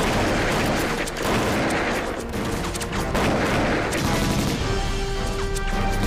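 Heavy, continuous gunfire: rapid machine-gun bursts mixed with rifle shots, dense and overlapping. Held notes of background music come in about four and a half seconds in, under the shooting.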